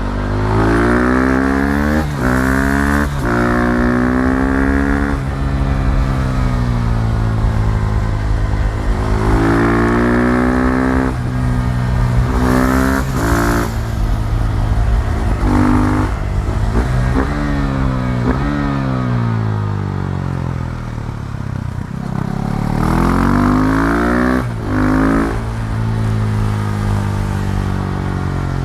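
KTM Duke 390's single-cylinder four-stroke engine on the move, revving up and down several times. The pitch climbs under acceleration with short breaks at gear changes, then falls away as the bike slows.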